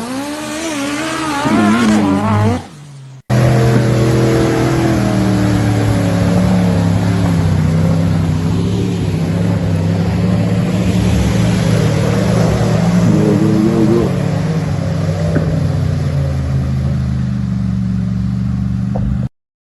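Off-road vehicle engine revving, its pitch rising and falling, then after an abrupt cut about three seconds in, an engine running steadily for about fifteen seconds with a brief rev partway through.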